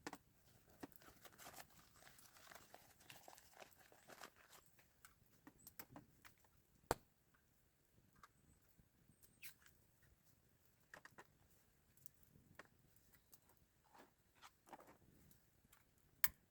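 Faint rustling and small scattered clicks, with two sharp clicks: one about seven seconds in and one near the end.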